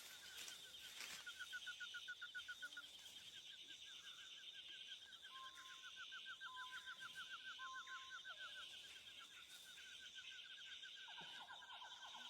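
Faint animal calls: a fast run of repeated chirps, about nine a second, over a steady high buzz, with three short even notes in the middle and a new fast chirping series starting near the end.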